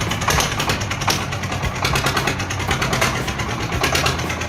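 A vehicle engine running steadily with a rapid, even rattle.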